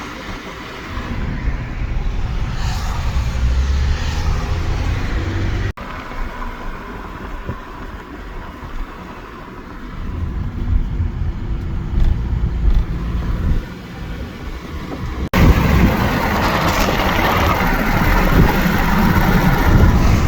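Car driving: a steady low rumble of engine and road noise with wind, broken by two abrupt cuts.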